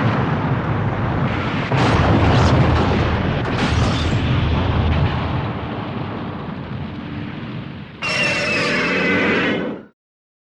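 SpaceGodzilla film sound effects: a deep explosion-like rumble that swells sharply about two seconds in and slowly fades, then a second, shorter blast with a few steady high tones running through it that cuts off abruptly near the end.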